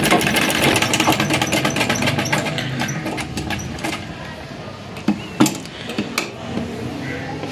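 Domestic sewing machine stitching along the neckline edge of layered cotton: a fast, even clatter of the needle with a steady hum for the first few seconds, then slower, more uneven stitching with two sharper clicks about five and six seconds in.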